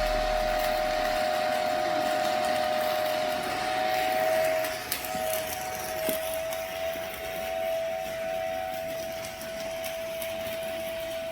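A steady two-tone machine whine that wavers slightly in pitch, over a hissing background with scattered small crackles.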